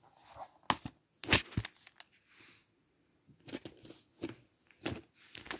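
Plastic DVD cases being handled, put down and picked up: a series of sharp clacks and rustles, the loudest a little over a second in.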